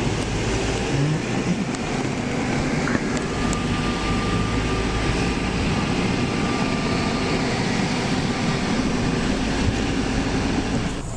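A car driving, with a steady mix of engine and road noise and a low hum.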